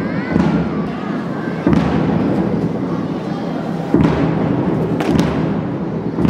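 Loud booming thumps, one every one to two seconds, over a continuous din.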